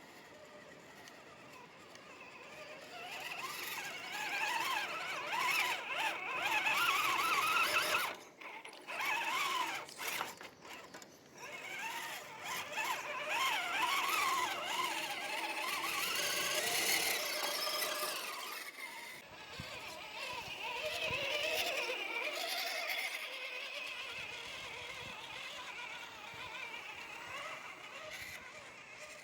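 RC scale crawler's electric motor and drivetrain gears whining, the pitch wavering up and down as the throttle is worked, in several runs with short pauses between them.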